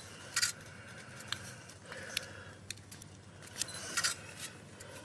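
A handful of short, sharp scrapes and clicks, irregularly spaced, as a hand-held spatula works metal repair putty over a brass-mesh patch on a finned metal pipe.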